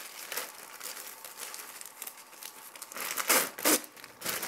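Crinkling and rustling of something being handled, a steady run of small scratchy clicks that swells louder a little after three seconds in and again near the end.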